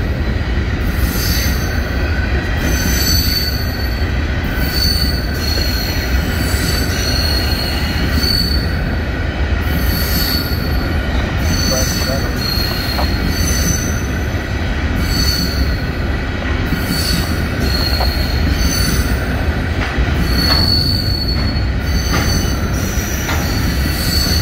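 A train of empty covered hopper grain cars rolling past close by: a steady, loud rumble and rattle of steel wheels on rail, with short high-pitched wheel squeals recurring about once a second.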